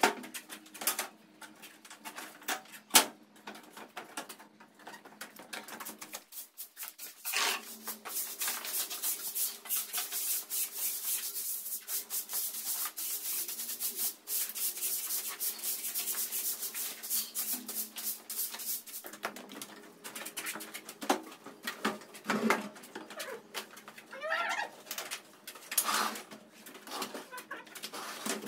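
Scraping: a steady rasping noise for about ten seconds in the middle, with scattered knocks and clatters before and after it.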